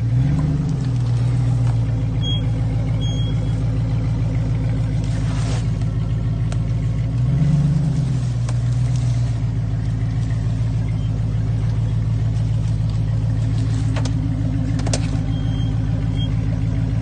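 A second-generation (P38) Range Rover's engine running at low revs as the truck crawls over rocks, rising briefly twice, about half a second in and again around seven to eight seconds in, as the throttle is pressed. A sharp click near the end.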